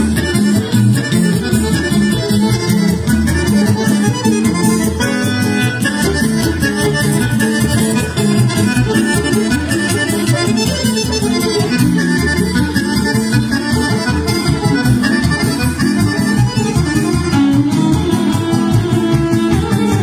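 Live band rhythm section playing: amplified nylon-string guitar chords over an electric bass line, in a steady rhythm.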